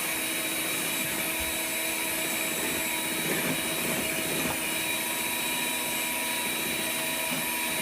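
Electric mixer running steadily at one speed, beating cupcake batter after the last dry ingredients have been added.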